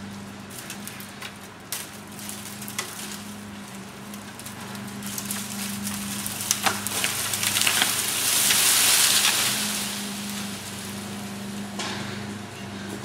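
A sawn-through tree cracking at its hinge with sharp snaps, then falling through brush with a swelling rush of swishing and snapping branches that peaks about eight seconds in. A chainsaw idles steadily underneath.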